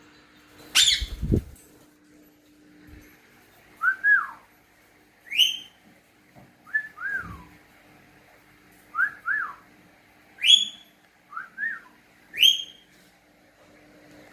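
A person and a parrot trading whistles: a lower two-note whistle alternates with a higher, sharper rising whistle, four rounds in all. About a second in there is a brief loud sweep and a thump.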